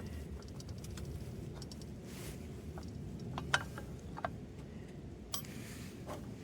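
Wood fire burning in a small sheet-metal wood stove: a steady low rumble with a few sharp crackles.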